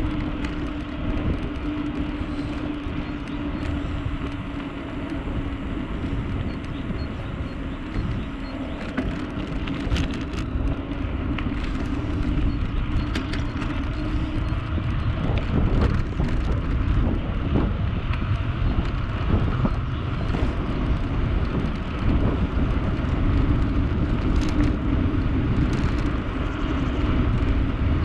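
Steady low vehicle rumble with a droning tone, growing a little louder in the second half.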